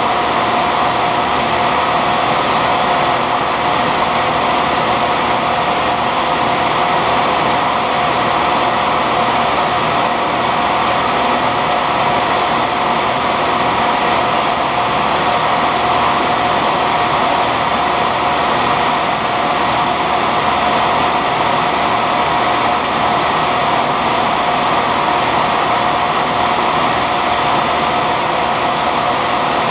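Shopsmith combination machine running as a lathe, a steady motor whine with a constant tone, as a graphite rod is turned in its chuck.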